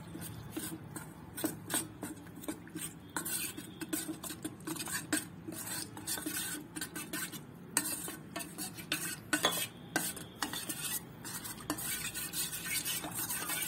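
Spoon stirring cornflour and water into a thin slurry in a stainless steel bowl, with repeated clinks and scrapes against the metal.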